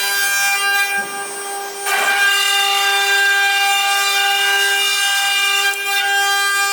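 CNC milling machine running, its spindle giving a steady high whine, with a rasping cutting noise added from about two seconds in.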